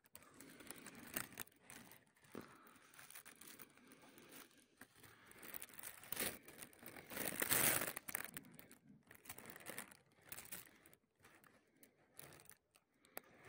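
Faint, irregular crinkling and rustling of a plastic sheet with crumbling soil as a clump of earth is handled and picked apart by hand. The loudest rustle comes about seven to eight seconds in.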